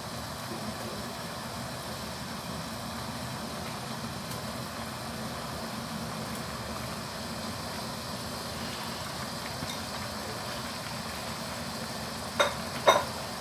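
Coconut-milk vegetable curry simmering in a wok over a gas burner, a steady hiss with no break, and two sharp knocks about half a second apart near the end.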